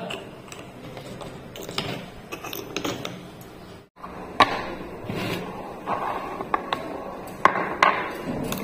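Scattered light clicks and knocks of small objects being handled on a tabletop: clay diyas on a clay plate, then small plastic paint pots. A brief gap comes about four seconds in.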